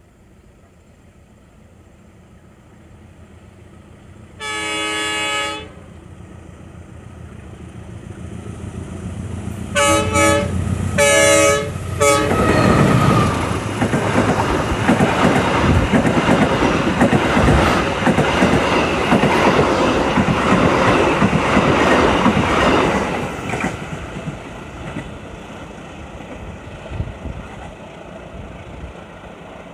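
Indonesian passenger train's diesel locomotive approaching: its horn sounds one long blast, then two short blasts several seconds later. The locomotive and coaches then pass close by with a loud rush and wheels clattering on the rails, fading as the train recedes.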